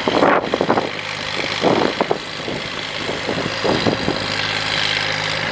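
Tractor engine running steadily while grading a dirt driveway, with several irregular short noises over it.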